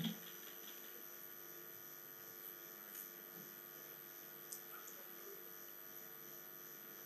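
Faint steady electrical mains hum, with a couple of soft clicks partway through.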